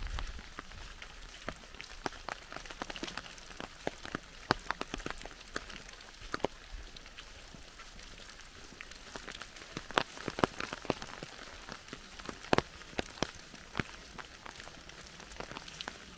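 Rain falling in woodland: a steady light hiss with many irregular, sharp drops landing close by.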